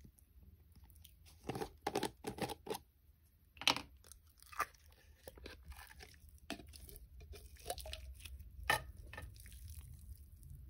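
Slime, Elmer's Gue among it, being kneaded and stretched by hand: irregular sticky clicks and crackles that come in bunches, loudest about two seconds in, near four seconds and near nine seconds.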